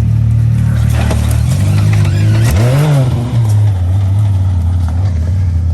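Can-Am Maverick X3's turbocharged three-cylinder engine running steadily at low revs, with one short rev about two and a half seconds in that rises and falls.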